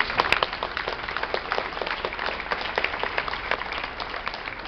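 Audience applauding, a dense patter of hand claps, loudest in the first moments and thinning slightly toward the end.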